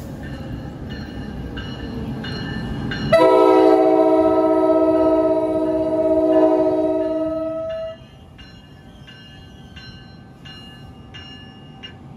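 NJ Transit ALP-46A electric locomotive sounding its multi-note horn in one long blast of about four and a half seconds, warning for a grade crossing, over the rising rumble of the approaching train. A crossing-signal bell dings about twice a second before and after the horn.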